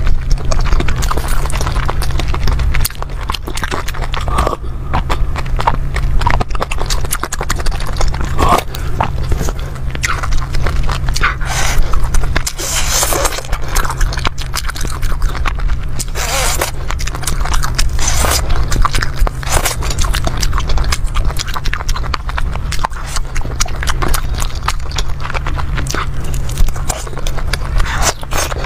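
Close-miked chewing and wet mouth sounds of eating fried skewers in chili sauce: many sharp wet clicks and smacks with short bursts of biting.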